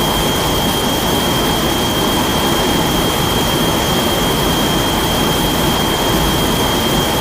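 Godzilla sound effect: a loud, steady rushing blast like a jet exhaust, with a thin high whistling tone held over it.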